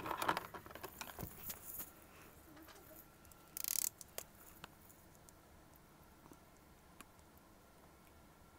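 Shrink-wrapped album being handled: cellophane wrap rustling, with a short loud crinkle about three and a half seconds in. Then come a few faint ticks and scratches as a box cutter slits the plastic wrap.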